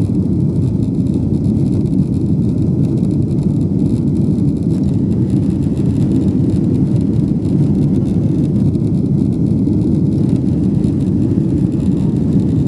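Cabin noise of a Boeing 777-300ER rolling along the ground: a steady low rumble from its GE90 engines and wheels.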